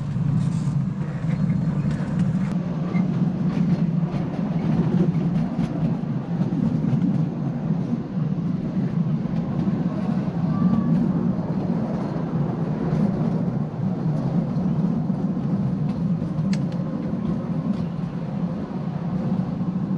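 Ride-on miniature railway train running along the track: a steady rolling rumble with a few faint clicks.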